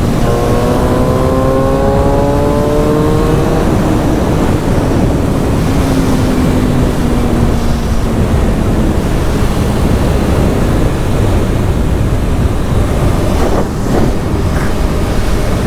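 Motorcycle engine accelerating, its pitch rising over the first few seconds, then running on at a steadier, slowly falling pitch, under heavy wind buffeting on the helmet microphone.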